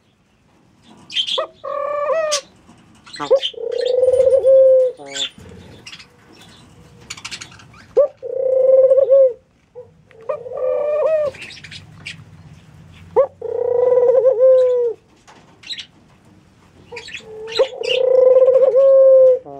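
Ringneck doves cooing: a run of low, drawn-out coos about a second long, repeated every couple of seconds, several with a short bend in pitch at the end, with fainter high chirps between them.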